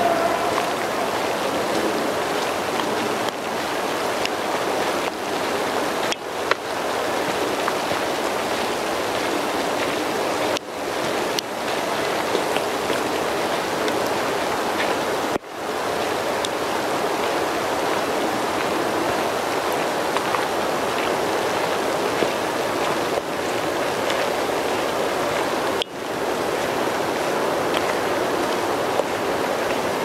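Steady hiss of water, even and without pitch, dipping suddenly and briefly three times before coming straight back.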